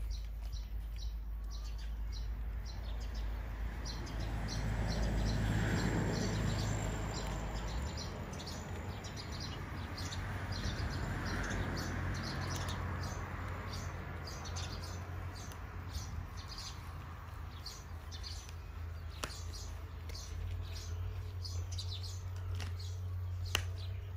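Small birds chirping in quick, repeated short calls over a steady low hum, with a soft rushing swell of noise a few seconds in and a sharp tick near the end.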